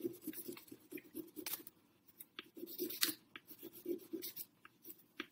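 Colored pencil scribbling on a sheet of paper on a wooden table: a quick, steady run of short scratchy back-and-forth strokes as a paper corner is coloured in.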